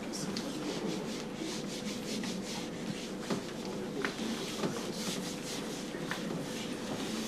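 Whiteboard being wiped with a handheld eraser: repeated rubbing strokes across the board's surface.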